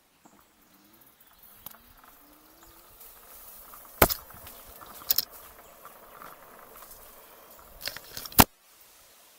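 An e-bike jolting over bumps: several sharp knocks and rattles over a light steady rolling hiss, with a faint rising whine about two seconds in. The hiss cuts off suddenly near the end.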